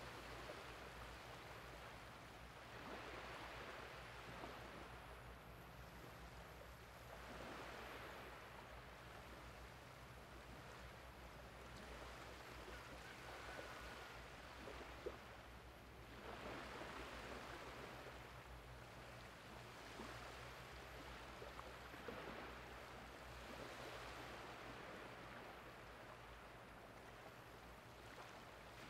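Small waves of the incoming tide washing softly over flat wet sand, a faint wash swelling and fading about every four seconds, over a low steady hum.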